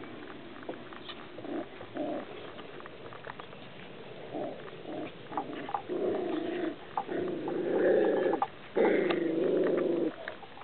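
Goldendoodle puppies growling in play as they wrestle: short low growls at first, building to longer, louder growls in the second half.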